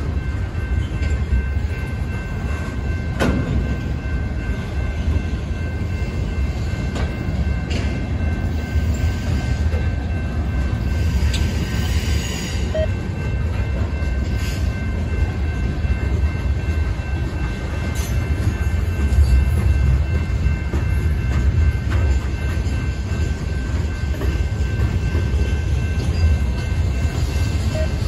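Freight train boxcars rolling past at a grade crossing: a steady low rumble of wheels on the rails, with a couple of sharp knocks.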